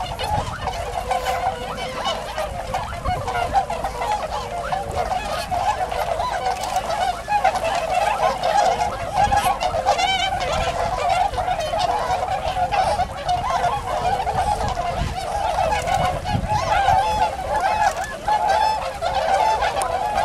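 A large flock of Bewick's swans calling all at once, a dense chorus of overlapping calls that never lets up.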